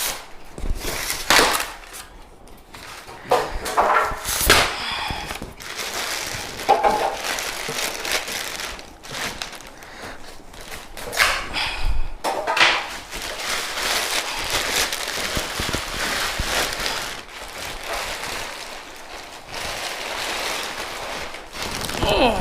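Microwave oven's cardboard box and packaging being opened and handled: irregular crackling, scraping and rustling, with a few louder rips.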